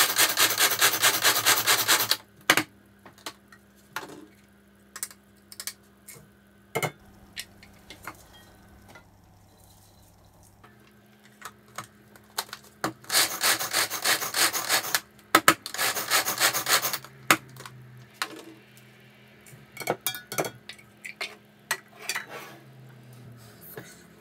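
Walnuts being chopped in a small hand-operated food chopper. There are three spells of fast, rhythmic rattling and grinding, each about two seconds long: one at the start and two close together around the middle. Scattered clicks and knocks of the plastic chopper and the steel bowl come in between.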